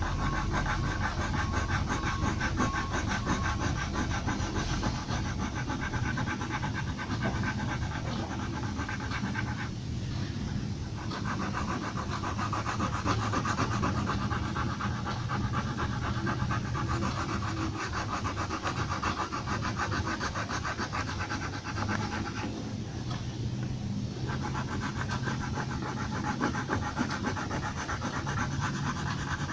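Pencil rubbing on paper in rapid back-and-forth shading strokes, with two brief pauses, one about ten seconds in and one a little past twenty, over a steady low room hum.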